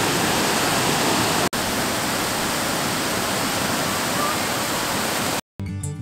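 Steady rush of falling water, broken by a momentary cut about a second and a half in. Just before the end it stops abruptly and acoustic guitar music begins.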